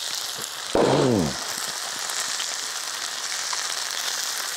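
Chicken and onion sizzling in a frying pan over a camping gas stove: a steady frying hiss. A man makes a short voiced sound with a falling pitch about a second in.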